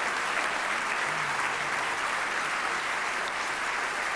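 Audience applauding, a steady, dense clapping that holds at one level.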